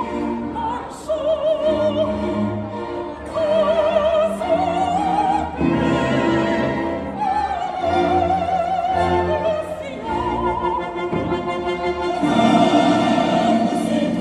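Operatic soprano singing long, high held notes with a wide vibrato over a live orchestra. The voice rises and falls in phrases, with the loudest held note near the end.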